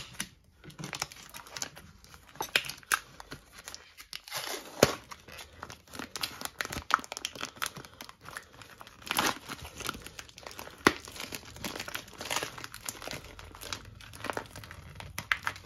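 Clear plastic wrapping being peeled and pulled off a beef joint's plastic tray by hand, crinkling and crackling irregularly, with a few sharp, louder snaps of the film.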